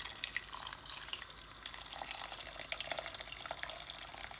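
Water poured steadily from a stainless steel kettle into a pot full of vegetables, splashing as it fills the pot around them.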